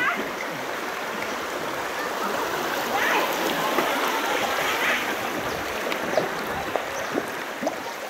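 River water rushing and splashing steadily around a raft moving downstream.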